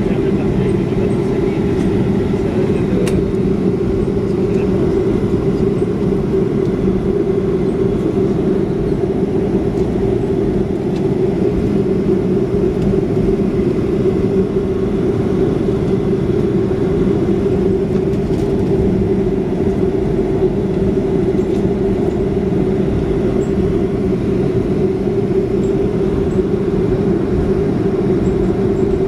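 Steady drone of a Boeing 737 heard inside the passenger cabin: engines and airflow running evenly.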